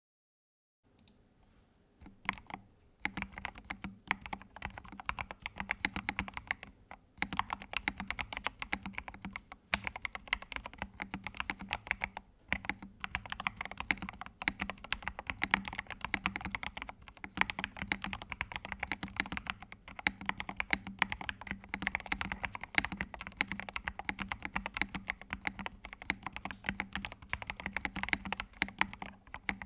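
Continuous fast typing on a computer keyboard: dense, rapid keystroke clicks with a few brief pauses between bursts, starting about a second in.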